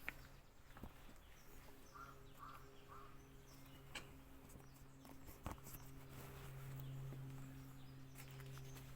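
A faint steady low hum, with a few light clicks and knocks of handling, the loudest about five and a half seconds in. Three faint short chirps come about two seconds in.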